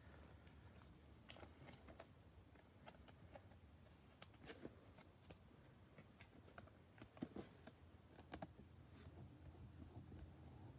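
Near silence with faint, scattered clicks and rustles of trading cards and a rigid plastic card holder being handled, as a card is slid into the holder.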